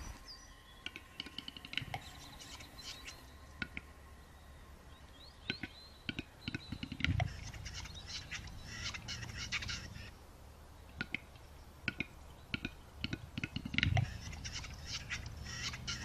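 Male capercaillie displaying: a run of sharp clicks and pops, irregular and bunched into two flurries, with small birds chirping in the background.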